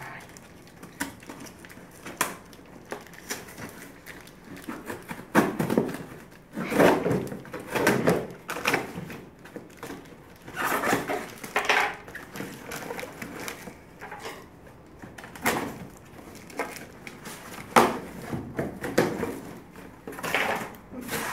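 A knife scraping and slitting the packing tape on a cardboard box, in irregular scrapes, crackles and rustles of cardboard; near the end the box flaps are pulled open.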